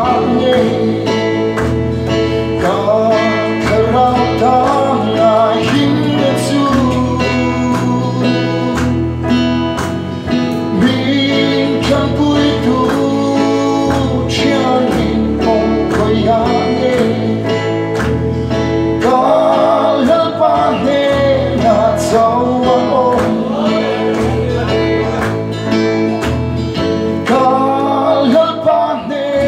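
A man singing a song into a microphone over his strummed acoustic guitar, with an electronic keyboard adding sustained chords and bass notes that change every second or two, heard through a PA system.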